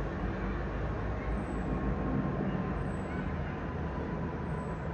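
British Airways Boeing 777-200ER jet airliner overhead: a steady engine roar with a faint steady whine held above it.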